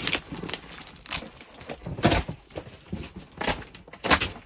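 Packing tape on a cardboard parcel being slit and torn, and the cardboard box shifted about: several short tearing and scraping rustles.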